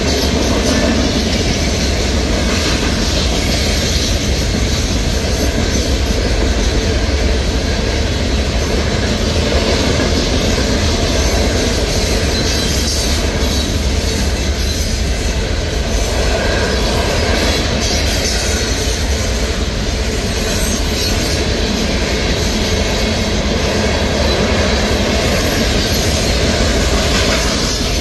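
Freight train of gravel hopper cars rolling steadily past: a continuous rumble and rattle of steel wheels on the rails.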